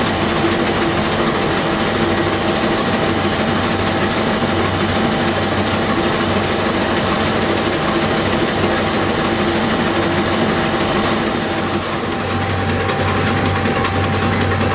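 Werkspoor 2100 hp four-stroke marine diesel engine running steadily, with a fast, even mechanical clatter from its open valve gear and rocker arms.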